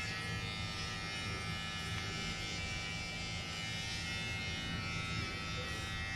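Electric hair clippers buzzing steadily as they cut a boy's hair.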